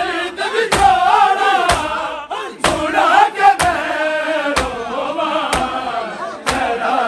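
Group of mourners chanting a noha together, with a sharp thump about once a second in time with the chant: rhythmic matam, chest-beating that keeps the lament's beat.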